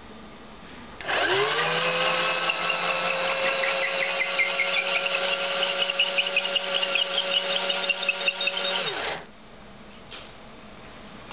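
Cordless drill's motor and gearbox turning a threaded rod under microcontroller control. It spins up quickly about a second in, runs steadily for about eight seconds, then winds down.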